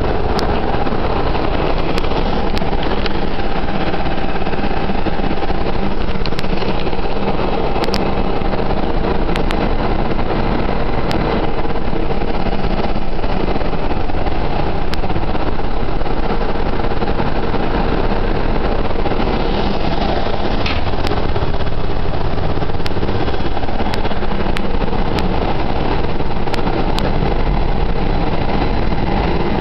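Very loud, steady din of a ship's engine room: machinery running continuously, with a steady hum through it.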